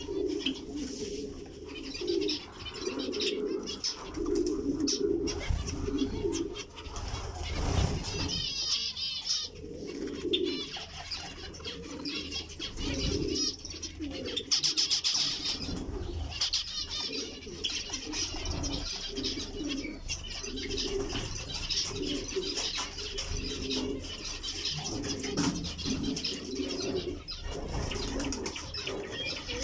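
Pigeons cooing over and over in low, repeated pulses, with bursts of high chirping calls from zebra finches that are strongest about eight and fifteen seconds in.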